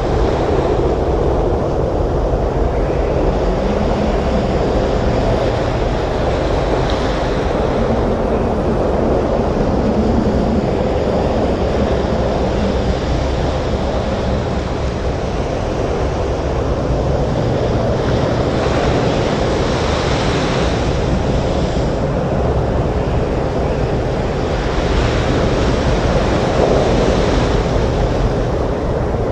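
Stormy surf breaking on a beach with wind: a steady low rumble of waves, with two surges of hissing wash in the second half.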